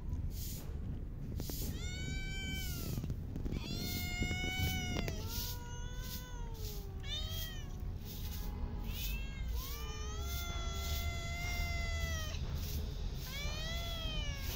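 Cats meowing repeatedly: about seven meows, some short and two long and drawn out, each rising and falling in pitch. A steady low rumble runs underneath.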